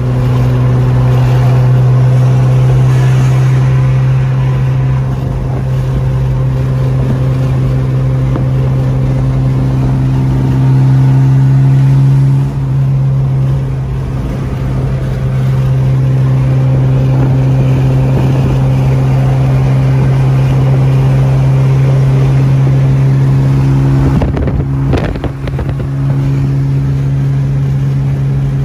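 Turbocharged Honda F20B four-cylinder at a steady highway cruise, heard from inside the cabin as a loud, steady low exhaust drone. The drone briefly dips about 12 seconds in and again near 25 seconds.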